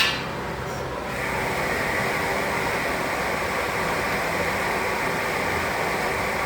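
A sharp click, then about a second in a MIG welder's arc strikes on aluminium with argon shielding gas and runs as a steady, even hiss.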